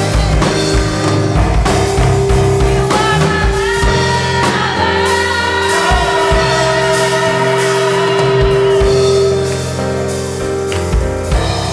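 Live gospel worship music: singers over a band with drums, with one long held note through the middle.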